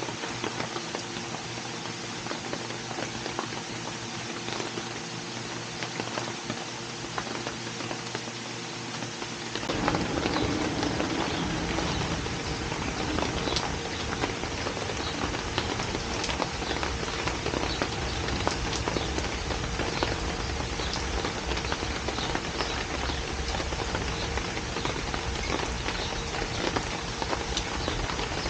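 Rain falling, a dense patter of many small drop ticks; about ten seconds in it turns louder and heavier, with a deeper rumble underneath.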